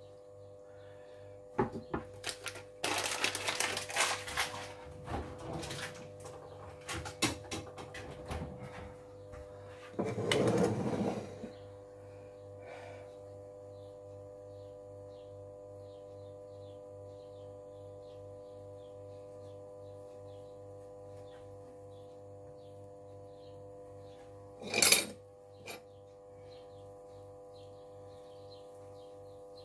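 Clinks and scrapes of a spoon pushing butter around a stainless steel roasting pan in the first ten seconds or so, with one loud knock near the end, over a steady low hum.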